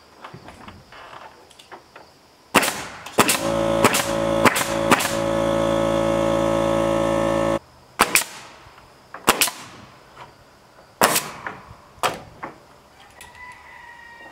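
Pneumatic nail gun firing nails into rough-sawn wooden boards, about nine sharp shots in irregular bursts. For about the first five seconds of the nailing, an air compressor motor runs with a steady hum, then cuts off suddenly.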